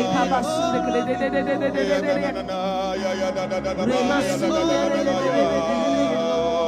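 Several voices singing spontaneous worship together, holding long wavering notes over sustained steady backing music.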